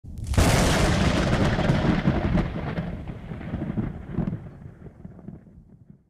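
An intro sound effect of a boom: a sudden loud burst about half a second in, then a rumble that fades away over about five seconds.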